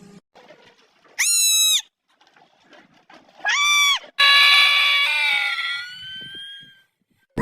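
An animal calling three times: two short, high cries about two seconds apart, then a longer one that fades out.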